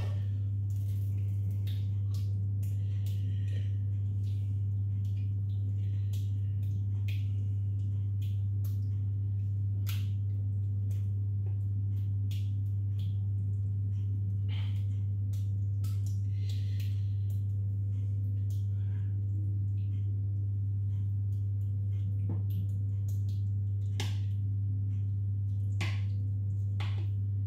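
A steady low hum throughout, with faint, scattered taps and scrapes of a spoon against a saucepan and a glass baking dish as cooked mince is spooned out.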